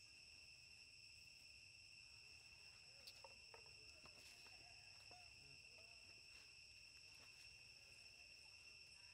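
Faint, steady high-pitched drone of insects in the forest, unbroken throughout. A few faint clicks come about three to four seconds in.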